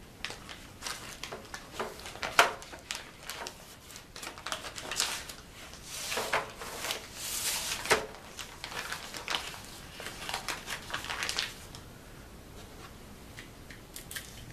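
A black film-holder envelope rustling and crinkling in the hands as a large-format film holder is slid into it and the envelope is folded over, with a few light clicks and knocks.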